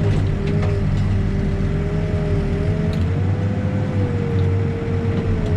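Heavy diesel earthmoving equipment running: a steady low engine drone with a whine that drifts slowly up and down in pitch.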